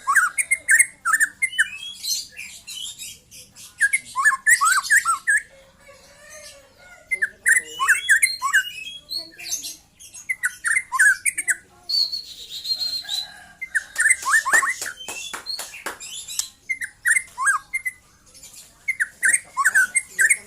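Young white-rumped shama, just moulted out of its speckled juvenile plumage, singing in bursts of quick whistled and chattering notes with short pauses between phrases. A held high whistle comes a little past the middle, followed by a quick run of sharp clicks.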